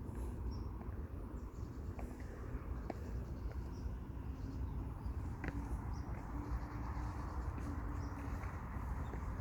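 Footsteps on a path, about one step a second, with faint bird chirps over a low steady rumble of wind.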